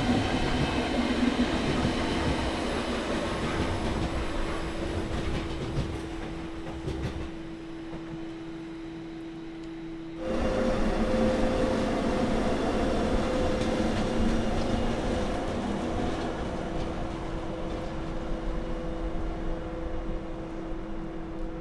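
Railway train running past with a steady hum over the rolling noise. About ten seconds in the sound jumps suddenly louder and a second, higher hum joins.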